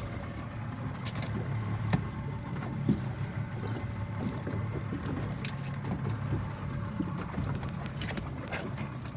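Small fishing boat's engine running steadily at a low, even hum, with a few sharp knocks on the boat, the loudest about two and three seconds in.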